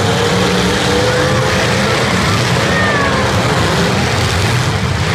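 Engines of several demolition-derby cars running and revving at once, a loud continuous mix whose pitch rises and falls as the cars shove against each other.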